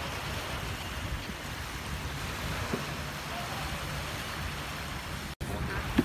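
Steady beach ambience: small waves washing onto the sand and wind, with faint voices in the background. The sound drops out for an instant near the end.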